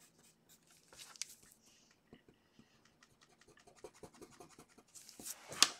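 Pen or pencil point scratching on paper in many short drawing strokes, coming faster after about four seconds. Near the end comes a louder rub with one sharp tick.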